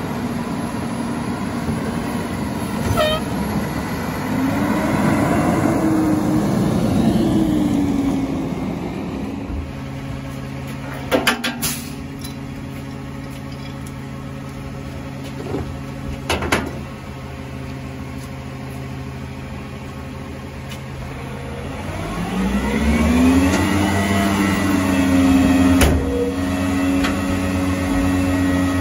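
Residential garbage truck's diesel engine revving up and easing back down twice, as on trash pickup, with a steady hum between the revs. A few sharp clanks sound around the middle.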